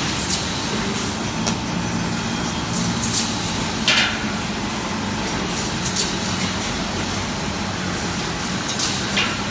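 Automatic steel-mesh welding machine running with a steady industrial hum. Short, sharp hissing bursts come at irregular intervals over it, the strongest about four seconds in.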